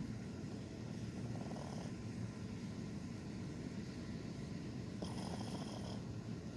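A dog snoring while asleep: two snores about four seconds apart over a steady low rumble.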